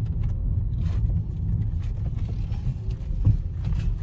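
Low, steady rumble of a car's engine and tyres heard from inside the cabin while driving, with a single bump about three seconds in.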